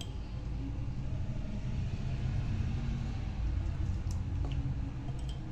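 Steady low background rumble, with a few faint light ticks about four seconds in, while salt is rubbed by hand into a raw fish's skin.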